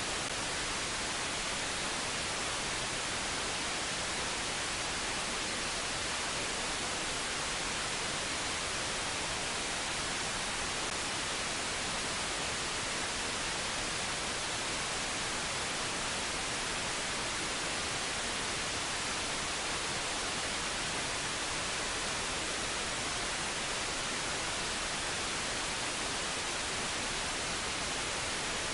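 Steady, even hiss from a software-defined radio receiver tuned to 137.1 MHz in wide FM mode: the Meteor-M2 weather satellite's digital QPSK LRPT downlink, which comes out of the receiver as plain noise with no tone or pattern.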